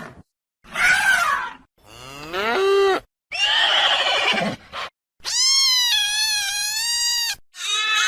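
A run of about five separate animal call sound effects, each one to two seconds long with short gaps between them; one rises in pitch and the longest, near the end, is a high, wavering, drawn-out call.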